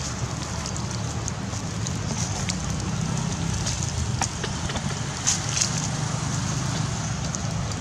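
Crackling and rustling of dry leaf litter as small monkeys move across it, with a few sharper crackles about four and five and a half seconds in, over a steady low wind rumble on the microphone.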